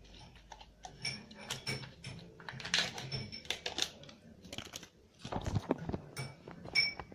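Irregular light clicks, taps and small rustles of plastic yogurt tubs being handled in a kitchen.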